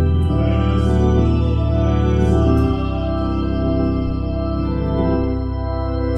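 Viscount organ played through a Leslie 760 rotating speaker: sustained chords over a bass pedal line, with the pedal note changing twice.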